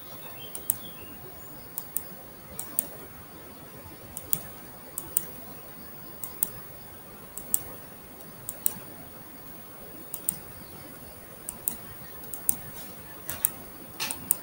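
Sharp computer mouse clicks, roughly one a second and sometimes in quick pairs like double-clicks, over a faint steady hiss.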